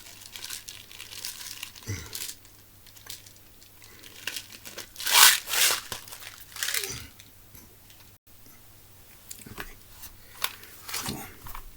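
Crinkling and rustling of handled material, with scattered small clicks and knocks; the loudest rustle comes about five seconds in, another near seven seconds.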